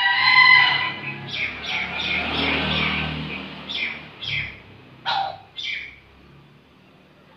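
Caged bekilus rooster, a junglefowl hybrid, crowing: a clear, ringing opening note that turns rough and noisy, then four short calls about halfway through.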